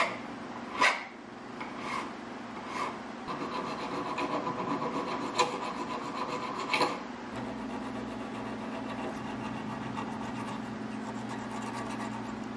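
Hand file drawn across the steel face of a hammer head with a brazed-in carbide drill bit, filing the face flush. First a few separate strokes, then about four seconds of steady filing, easing to lighter strokes after about seven seconds.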